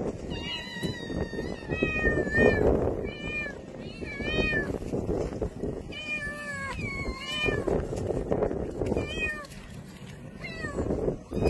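Several young stray cats meowing for food, many short high-pitched meows overlapping in quick succession.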